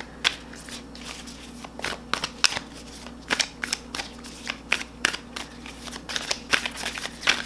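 A deck of oracle cards being overhand shuffled by hand: a run of short, irregular snaps and slaps of card against card, a few each second.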